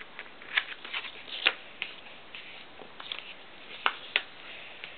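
A sheet of A4 paper being folded and creased by hand, giving scattered short crackles and rustles over a faint hiss.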